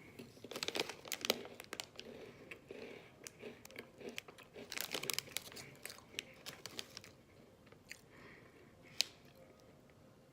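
Plastic snack packet crinkling as it is torn open and handled, with small crunchy Mini Cheddars biscuits being bitten and chewed. The crackling comes in two dense spells, with a single sharp click near the end.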